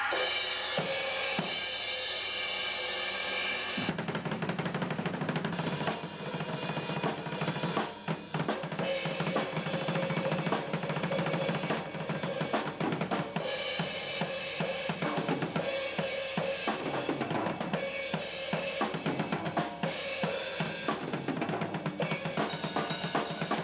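Acoustic drum kit being played: a cymbal rings for about the first four seconds, then fast, busy drumming carries on to the end.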